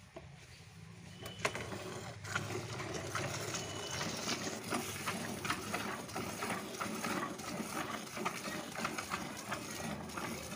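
Cow being milked by hand: streams of milk squirting into a bucket in a quick, steady rhythm, starting about a second and a half in.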